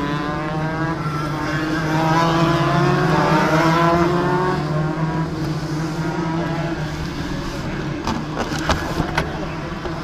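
Motor engine running, its note rising slowly and then easing off, with a few sharp knocks near the end.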